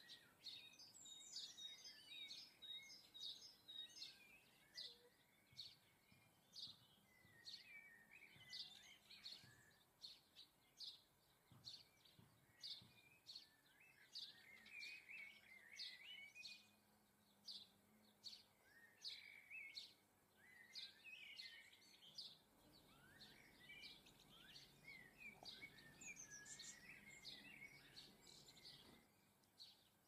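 Faint garden birdsong: many short, high chirps and twittering calls from small songbirds, repeated over and over.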